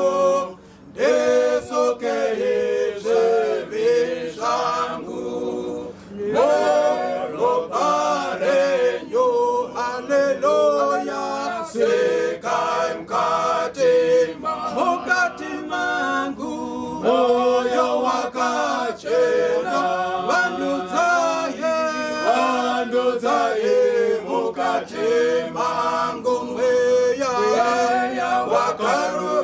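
A group of men singing a hymn together a cappella, with no instruments, the singing dipping briefly about a second in and again about six seconds in.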